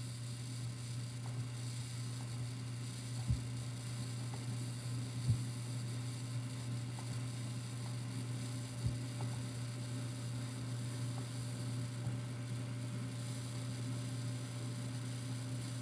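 Steady electrical mains hum, with three soft low thumps along the way.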